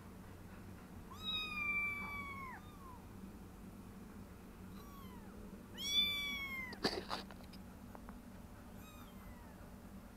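Three-week-old kittens mewing: a long high mew that falls at its end about a second in, a faint one, then a loud mew about six seconds in, and a faint one near the end. A sharp knock comes just after the loud mew.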